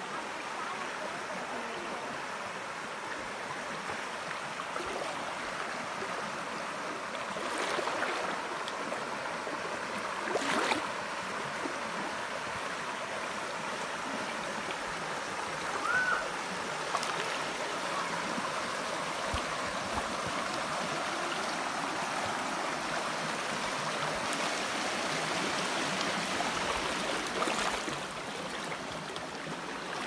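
Shallow river running over rocks and pebbles: a steady rushing, babbling sound of flowing water, with a few brief louder moments along the way.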